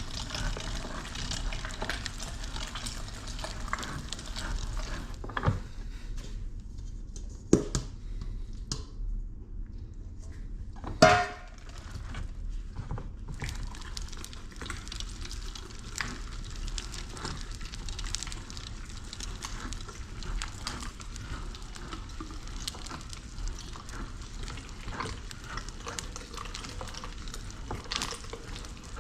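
Hand-cranked Chop-Rite #32 meat grinder grinding deer meat: steady wet squishing with small clicks from the crank and auger. A few sharp knocks come around a third of the way in.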